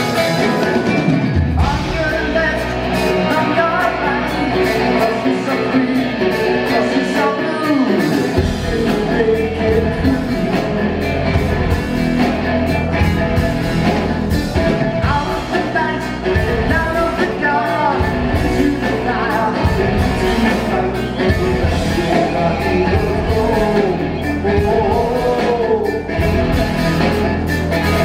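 Live progressive rock band playing loudly, with singing over drums, bass and guitar, recorded from the audience on a compact camera's built-in microphone. The low bass and drums come in about one and a half seconds in, drop out briefly, and return about eight seconds in.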